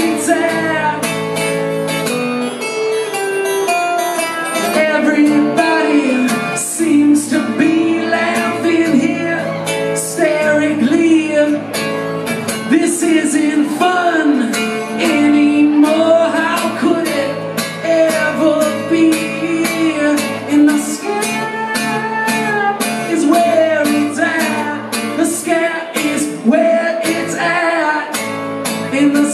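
Man singing a song to his own acoustic guitar, strummed in a steady rhythm, played live through a club PA.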